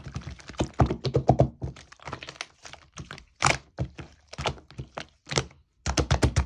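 Slime being squished and pressed by hand, giving irregular sticky clicks and pops, with quick runs of them about a second in and again near the end.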